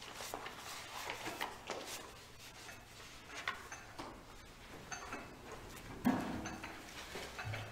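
Mugs and dishes clinking lightly on a tray as it is lifted and carried away, with small knocks and footsteps, and a louder knock about six seconds in.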